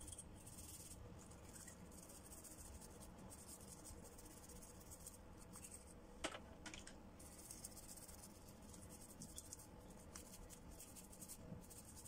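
Faint scratching of toothbrush bristles scrubbing a clam shell, coming and going in spells, with one sharp click about six seconds in.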